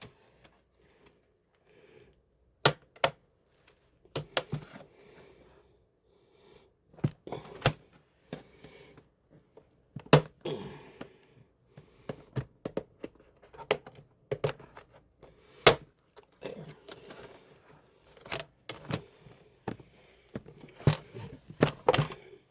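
Irregular sharp plastic clicks and knocks, a few louder than the rest, from working at a laptop's plastic bottom case with tools while trying to pry it open.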